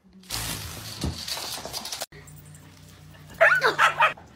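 A dog giving a quick run of high-pitched yelps about three and a half seconds in, over a low steady hum. Before that comes about a second and a half of hissy noise, cut off suddenly.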